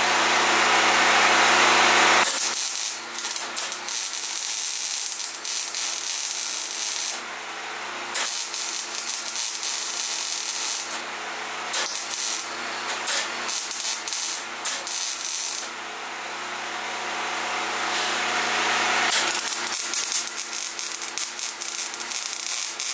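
MIG welder arc crackling and sizzling in runs of a few seconds as it fills holes in a steel bus floor, with short pauses between holes; a steady loud hiss for about the first two seconds. A frying-bacon crackle is the sign that the hole is filled and the gun should move on.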